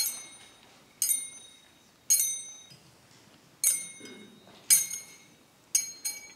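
Brass thurible swung on its chains to incense a bell, clinking with each swing: bright metallic clinks that ring briefly, about once a second, with two in quick succession near the end.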